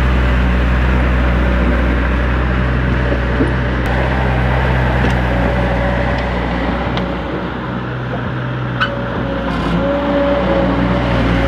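An engine running steadily, with a higher whine that comes and goes over its drone and a few faint clicks.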